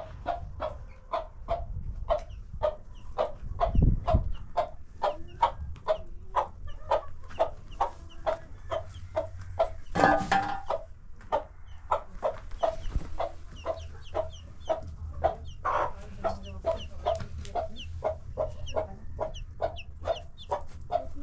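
Domestic hen clucking steadily and evenly, about two clucks a second, with a heavy low thump about four seconds in and a louder, fuller call about ten seconds in.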